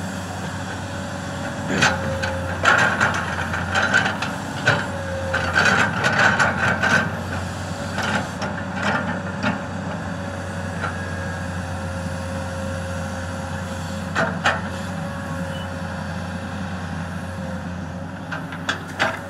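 Komatsu PC200 crawler excavator's diesel engine running steadily with a thin steady whine over it. Sharp clanks and knocks come as it works, mostly in the first several seconds and again about two-thirds through.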